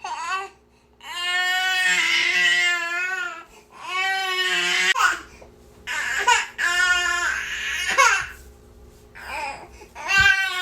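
Infant crying in repeated wavering wails, each a second or two long, broken by short pauses for breath.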